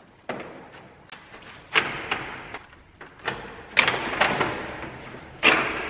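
Plastic radiator fan shroud being worked loose and pulled up out of a Mitsubishi Triton's engine bay: a run of irregular knocks and clunks, about half a dozen loud ones, each with a short echo.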